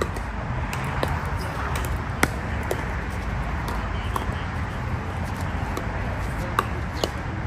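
A pickleball rally: paddles striking the hard plastic ball, a short sharp pock every second or so, over a steady low background rumble.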